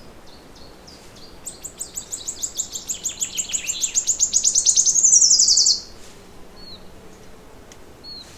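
A songbird singing one long trill: a few soft notes, then a rapid run of high notes that speeds up and grows louder and ends abruptly about six seconds in. Two short chirps follow near the end.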